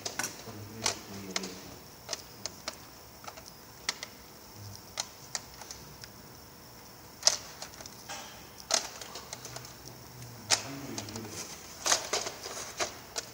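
Irregular clicks and clacks of hard plastic trays being handled and stacked, with a few sharper knocks.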